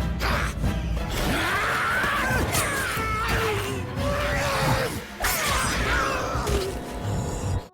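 Loud music that cuts off suddenly near the end.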